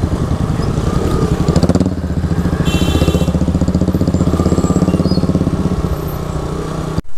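Motorcycle engine running with a rapid low throb as the bike rides along, heard from the rider's seat, with a brief high-pitched beep about three seconds in.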